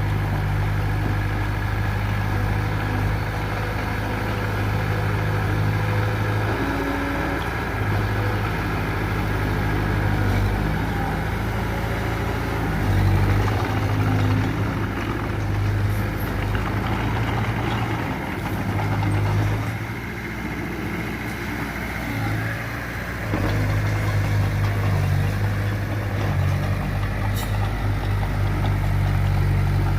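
Diesel engine of heavy earthmoving machinery running steadily, its note shifting up and down with load. It drops back for a few seconds about twenty seconds in, then picks up again.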